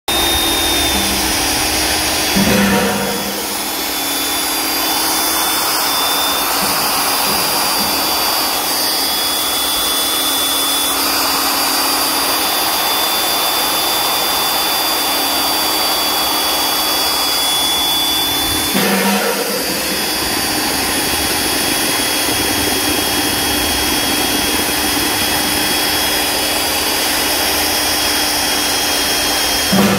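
Hougen HMD904 magnetic drill running steadily while its annular cutter bores through steel plate, a motor whine over the cutting noise. There are two brief louder bumps, one a couple of seconds in and one about two-thirds of the way through.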